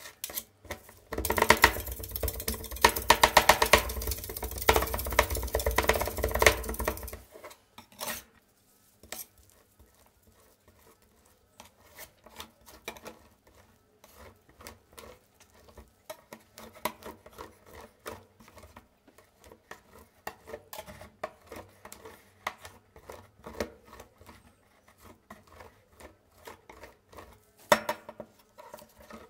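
Two steel spatulas rapidly chopping rolled ice cream against a stainless steel cold-plate pan, a dense metal clatter from about a second in that stops suddenly about six seconds later. After that, quieter scraping and tapping as the mix is spread thin over the pan, with a louder burst of scraping near the end.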